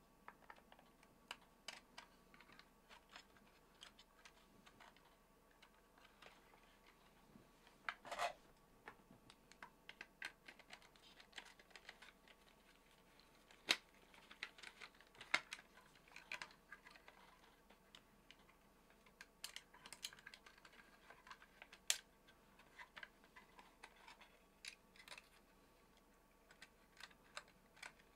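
Faint, irregular light clicks and taps, with a short rustle about eight seconds in and a few sharper clicks in the middle.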